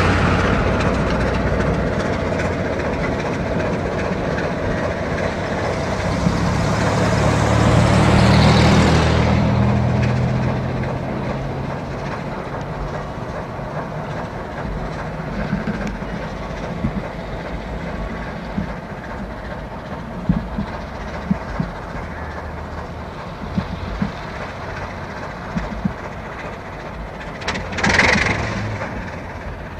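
Baldwin diesel switcher locomotive running as it moves along the track, its low engine drone swelling and then fading after about ten seconds. Scattered clicks of the wheels follow, and there is a brief loud burst near the end.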